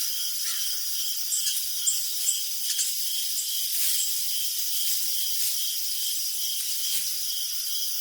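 Crickets chirping in a steady chorus: one cricket's short chirp repeats about twice a second over a continuous high trill from the others.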